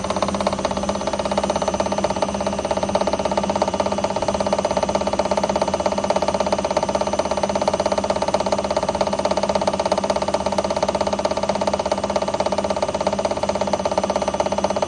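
IFB washing machine spinning, with a steady, fast, even rattling over a steady hum: the spin-cycle noise the machine is faulted for.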